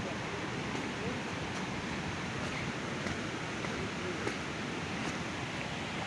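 Steady, even rushing of a distant waterfall.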